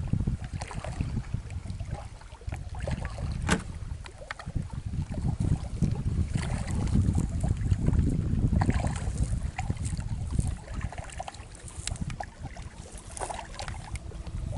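Wind rumbling on the microphone, swelling and easing, with scattered small clicks and knocks.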